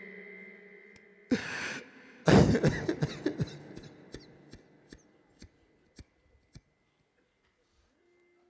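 A man coughing and clearing his throat twice, close to the microphone, followed by a string of sharp clicks that come further apart and fade out.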